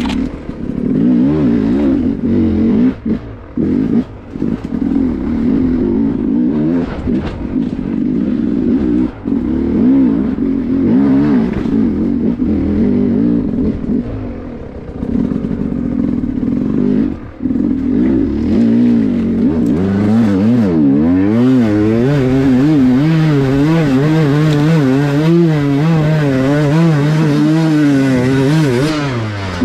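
Dirt bike engine running at low revs with frequent small throttle changes as the bike picks its way over rocks, with knocks and scrapes of the tyres on stone. From about twenty seconds in it runs more steadily with a regularly wavering pitch, then cuts off just before the end.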